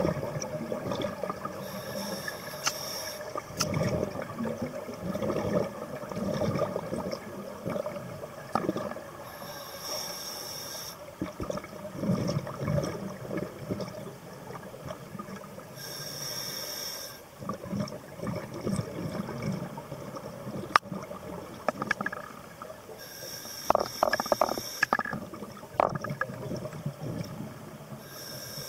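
Scuba diver breathing through a regulator underwater: a short hiss with each inhalation about every seven seconds, and bubbling exhalations rumbling in between.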